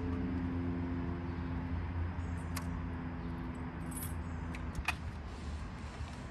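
Light metallic clicks and a jingle of keys as a jump box's clamps and the ignition key are handled on a 2008 Suzuki GSX-R750, over a low steady hum that fades out about three-quarters of the way through.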